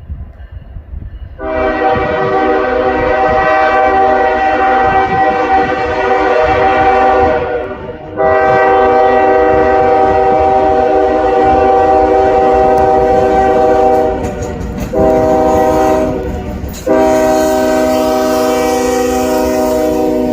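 Approaching freight locomotive's multi-chime air horn blowing two long blasts, one short and one long, the standard grade-crossing signal, over the low rumble of the moving train. The first blast starts about a second and a half in, and the last one is still sounding at the end.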